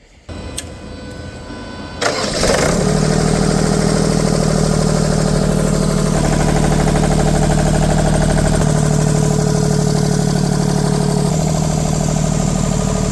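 Deutz F3M2011 three-cylinder oil-cooled diesel engine starting: about two seconds of cranking, then it catches and runs steadily.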